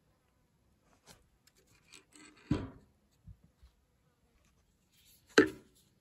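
Handling noise from unpacking a GoPro dome kit: rustling and a few knocks as the plastic parts are set down, with two louder knocks, one about two and a half seconds in and the loudest near the end.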